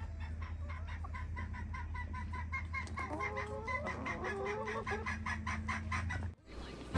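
Chickens clucking: a quick, even run of short pitched clucks, about five a second, with a few longer calls from other birds mixed in midway. The sound cuts off suddenly near the end.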